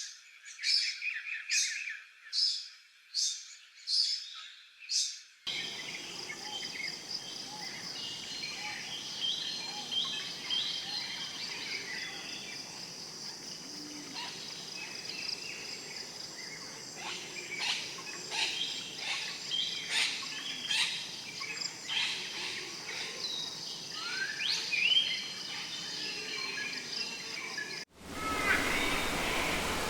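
Birds calling. First one bird repeats a short high call about every three-quarters of a second. Then, after a sudden cut, a dense chorus of many birds chirps and whistles over a steady background hiss. Near the end the sound changes again abruptly.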